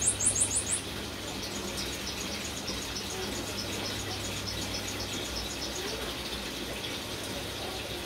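Greater green leafbird (cucak ijo) ending a fast, high trill of about seven notes a second, which stops under a second in. After it there is a steady hiss with faint, rapid high chirping and a low hum.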